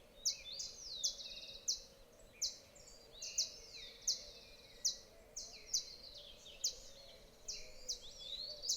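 Outdoor birdsong: short high chirps and quick trills repeating about once a second, some sliding down in pitch, over a faint steady hum.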